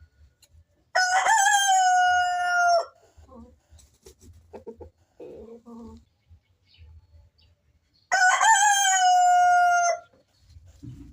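A rooster crowing twice, two long crows about seven seconds apart, each lasting about two seconds and holding a steady pitch before cutting off. Faint short sounds come between the crows.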